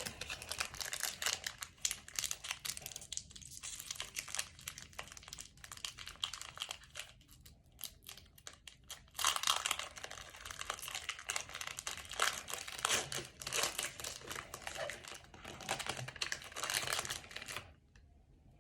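Plastic trading-card pack wrapper crinkling as it is handled and torn open, a dense high crackle that eases off about halfway through, then picks up louder again until shortly before the end.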